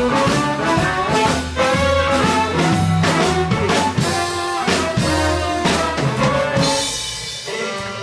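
Blues band playing live: amplified harmonica leading over drum kit and upright bass with a steady beat. About six and a half seconds in the band drops out, leaving a cymbal ringing.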